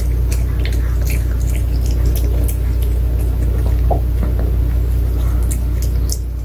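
Pomeranian chewing a probiotic chew treat: a scatter of short, crisp crunching clicks. A steady low hum runs underneath.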